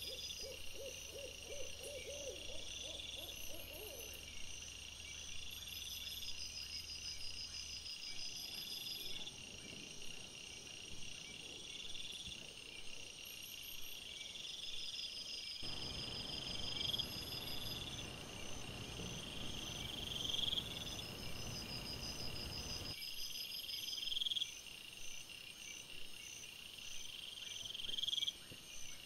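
Night insects calling in woodland: steady high trills and pulsing chirps, with a rising call that repeats about every two seconds.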